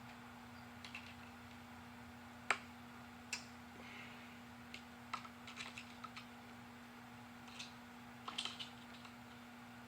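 Scattered light clicks and ticks of small metal parts being worked by hand onto a forged piston during rod and piston assembly. There is a sharper click about two and a half seconds in and quick clusters of clicks in the middle and near the end, over a steady low hum.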